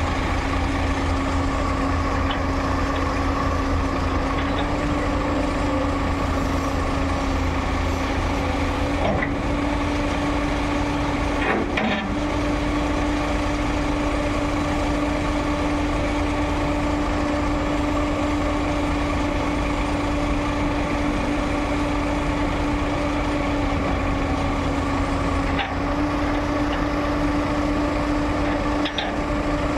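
Diesel engine of a JCB JS205 LC tracked excavator running steadily under working load, with a constant hum.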